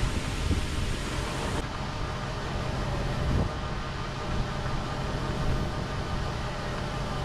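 Heavy farm machinery running steadily, a constant low rumble with a faint mechanical hum and wind noise on the microphone.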